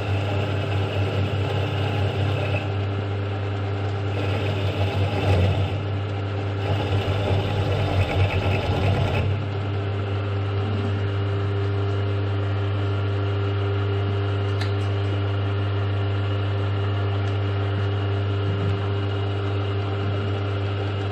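Milling machine spindle running with a steady hum while an 8 mm milling cutter cuts a flat onto the top of a broken bolt. The cutting comes in three rough bursts over the first nine seconds. After that the spindle runs on without cutting, and there is a single click partway through.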